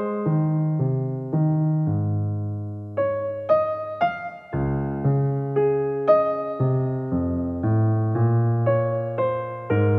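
Background piano music: single notes struck about twice a second over held bass notes.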